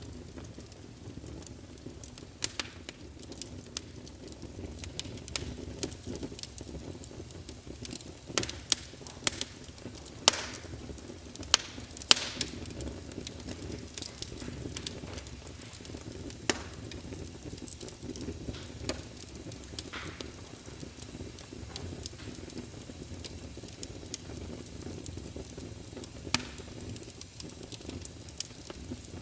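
Burning wood log fire: a steady low rush of flame with irregular sharp crackles and pops, which come thickest about a third of the way through.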